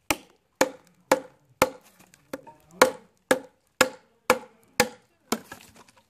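KA-BAR Becker BK9 knife blade chopping into a very hard, long-seasoned peumo branch: sharp, even strikes about two a second, about eleven in all. Near the end there is a short crackle as the branch is cut through.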